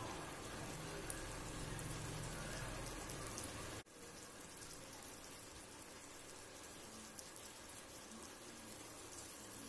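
Dry fish and shallot gravy simmering in sesame oil in a pan, a faint soft crackling sizzle. It drops out for an instant about four seconds in, then carries on.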